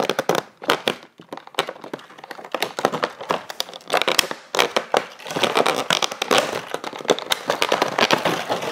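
Clear plastic blister tray of toy packaging crinkling and crackling as it is bent and pulled apart by hand: a dense, irregular run of sharp cracks and pops.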